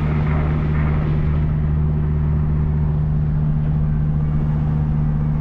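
Calvo twin-turbo Dodge Viper's V10 engine running with a loud, steady drone that holds one pitch throughout, with a hiss above it.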